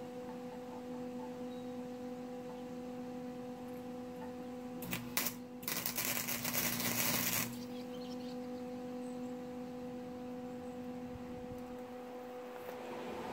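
Electric welding arc crackling for about two and a half seconds as exhaust pipe is welded onto a muffler, starting with a short sputter about five seconds in and cutting off sharply. A steady electrical hum runs underneath.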